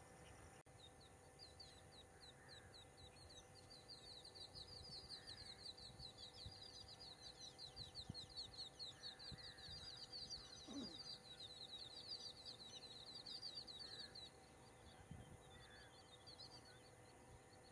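Faint, fast trill of a small bird: a rapid run of high chirps repeated many times a second, swelling and then stopping a few seconds before the end, with a few lower single chirps scattered through it.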